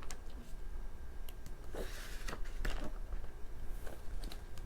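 Paper handling as a glossy album photo book is paged through: a soft rustle of a page turning about two seconds in, with a few light clicks and taps.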